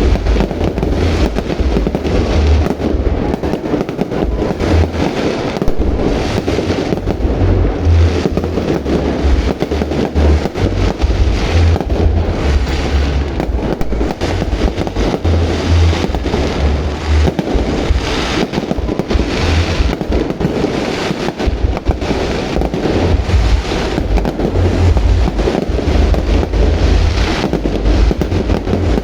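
Fireworks display with aerial shells bursting continuously, deep booms overlapping with crackling, and no pause throughout.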